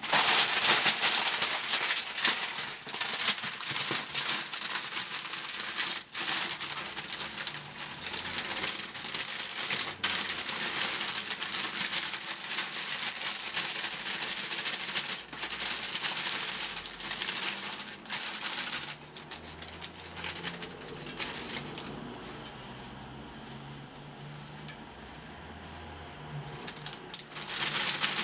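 A plastic bag of chopped kale crinkling and rustling as it is handled and emptied into a cooking pot. The crinkling eases off about two-thirds of the way through and picks up again near the end.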